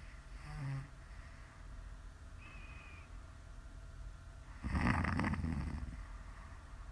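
A woman snoring in her sleep: a short, soft snort near the start, then one loud, fluttering snore about a second and a half long in the second half.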